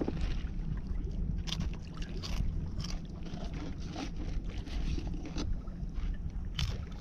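Steady low rumble of an open fishing boat's surroundings, with a few short, light clicks and knocks scattered through it.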